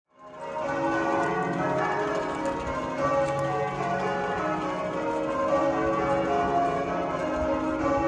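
Canterbury Cathedral's bells in change ringing, many bells struck one after another in quick overlapping succession, fading in over the first second.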